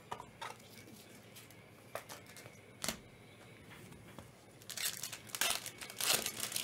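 Foil trading-card pack wrappers crinkling and tearing as the packs are handled and ripped open. A few light clicks come first, then a dense stretch of crinkling and tearing in the last two seconds, the loudest part.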